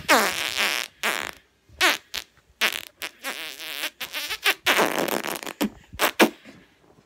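A boy making a string of noise impressions with his mouth: a quick series of short, buzzy, spluttering blown sounds with a wobbling pitch, stopping about six seconds in.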